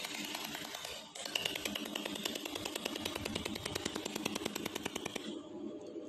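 Pulsed YAG laser welder firing on wire, each laser pulse a sharp snap in a fast, even train of ticks. There is a short pause about a second in, and it stops near the end.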